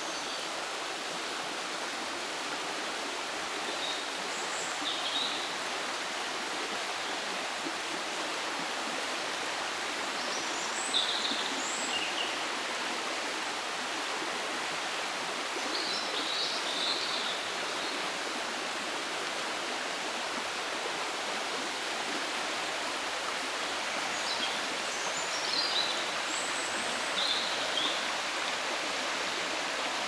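Steady rush of a fast-flowing river, with small birds singing short, high phrases in the trees above four or five times.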